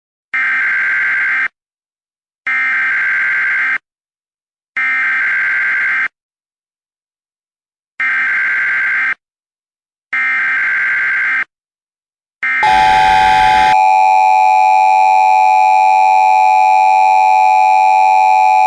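Emergency Alert System signals: five short bursts of screeching SAME header data about a second apart, then a brief burst of static, then the loud, steady two-tone EAS attention signal.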